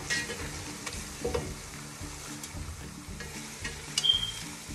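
Sliced onion sizzling in hot oil in a pot while it is stirred, with a few knocks and scrapes of the spoon against the pot, one near the end ringing briefly.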